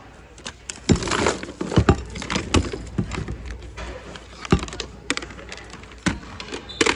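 Hands rummaging through a bin of mixed household items, with plastic and hard objects clattering and knocking against each other in irregular clusters that start about a second in.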